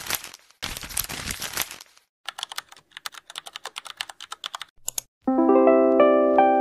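Two long ripping sounds like paper tearing, then a quick run of keyboard typing clicks for about two and a half seconds. About five seconds in, music with piano-like notes starts.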